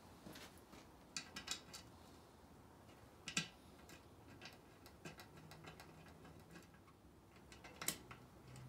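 A few light, irregular clicks and taps of metal parts being handled as a valve cover is set and pressed down onto the cylinder head of an engine on a stand. The two sharpest clicks come about three and a half and eight seconds in.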